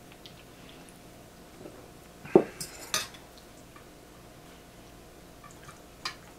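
Tableware and cutlery at a meal table: a sharp knock with a short ring about two and a half seconds in, a few metal clinks right after, and a single clink of a fork on a dish near the end.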